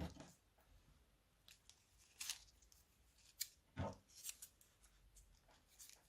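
Scissors snipping plastic piping bags: a few faint, separate crisp snips, the clearest about two, three and a half and four seconds in.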